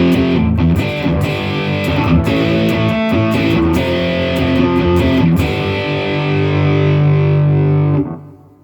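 Electric guitar played through a computer amp simulation into a full-range (FRFR) speaker with a crunchy, lightly distorted tone: a busy run of notes and chords, ending on a held chord that is cut off about eight seconds in.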